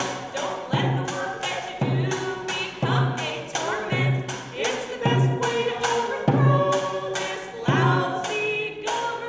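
Voices singing a song together to a snare drum struck on a slow, steady beat, about once a second.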